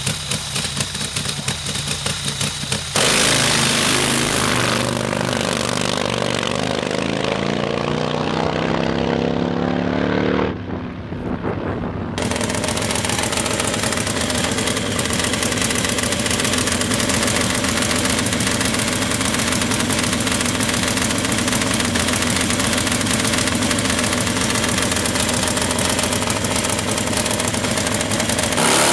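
Nitro-burning Harley drag motorcycle engine: a choppy running sound gives way about three seconds in to a sudden louder sound whose pitch rises for several seconds, dips briefly about ten seconds in, then runs loud and steady.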